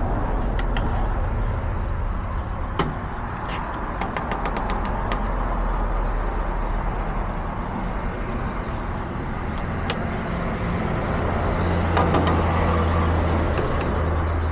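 Steady street traffic noise with a low engine hum that grows louder for a few seconds near the end, and a scatter of light clicks and taps.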